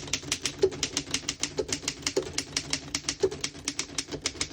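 A 1920 Underwood No.5 manual typewriter being typed on in a steady run, about six sharp key strikes a second, the keys striking cleanly without skipping or sticking.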